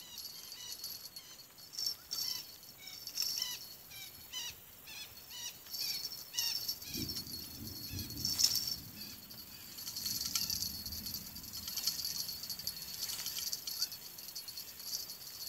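Steady high-pitched insect chorus, with short chirps repeating two or three times a second for the first half and a low rumble of noise from about seven seconds in.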